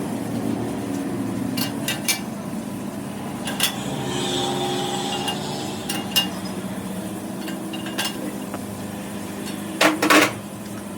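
Hand tools clinking and knocking on metal parts: several sharp metallic knocks, with a louder double knock near the end, over a steady low hum.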